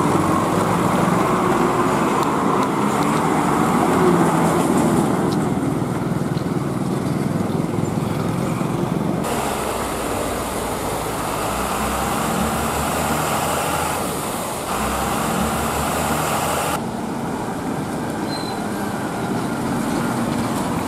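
Heavy diesel truck engines running and rolling slowly past on a rough road, with tyre and road noise. The sound changes abruptly a few times as one passing truck gives way to the next.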